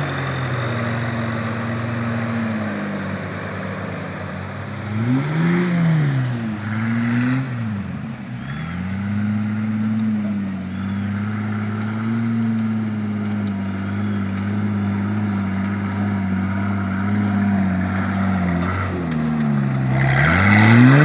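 Turbocharged engine of an off-road Jeep cage buggy running steadily, revved up and back down twice in quick succession about five to seven seconds in, and revving up again near the end.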